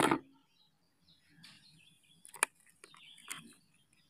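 Plastic toy vehicles being handled: faint rustling and knocks, with a couple of short, sharp clicks about two and a half and three and a quarter seconds in.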